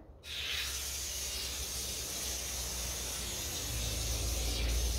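Water from a garden hose spraying onto a small dog and the wet concrete under it: a steady hiss that starts just after the beginning, with a low rumble rising near the end.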